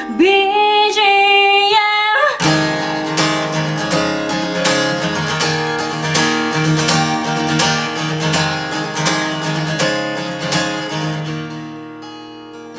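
Gibson acoustic guitar strummed with a capo, under a woman's sung line that ends about two seconds in. An instrumental passage of steady strumming follows and softens near the end.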